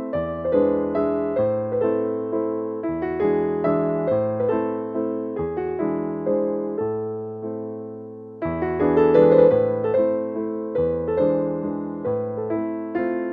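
Background piano music: a light tune of evenly paced notes over a slow bass line, thinning out about eight seconds in before a fuller phrase comes in.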